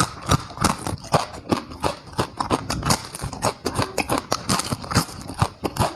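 Close-miked chewing of food, a rapid run of wet smacks and crunchy clicks, several a second, with no pause.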